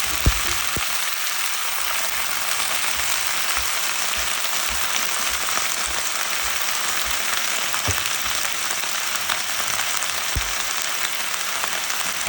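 Callaloo greens sizzling in a pot on the stove, a steady hiss, with a few short knocks, the loudest just after the start.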